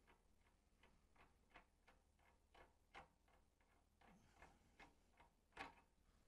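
Faint, regular clicking at about three clicks a second, from an adjustable lever handle being pushed up and rotated to back its nut off the table mount of a 14-inch Laguna bandsaw. The loudest click comes near the end.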